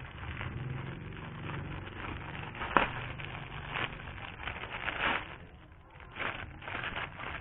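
Plastic courier mailer being opened and a plastic-wrapped jersey pulled out: irregular crinkling and rustling of plastic, with one sharp snap a little under three seconds in.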